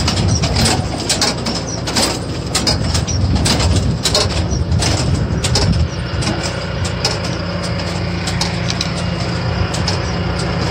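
Farm tractor engine running steadily while it pulls a cabbage transplanter, a continuous low hum. Irregular clicks and clatter sound over the first six seconds or so, then the engine hum goes on alone.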